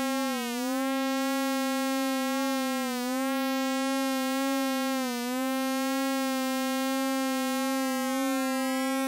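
Harmor synthesizer resynthesizing a photograph into sound: one held, buzzy note rich in overtones, with a slight dip in pitch three times. Near the end, rising sweeps start up in the high overtones.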